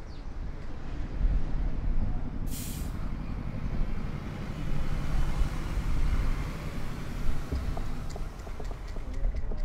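Low, steady engine rumble of a heavy vehicle, with a short sharp hiss of air about two and a half seconds in.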